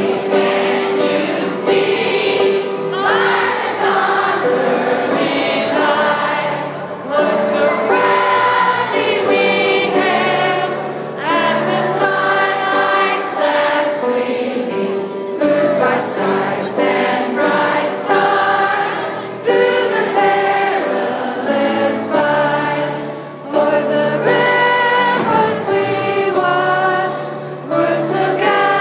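A large group of children and adults singing a patriotic song together in a school gymnasium, in long held sung phrases with short breaths between them.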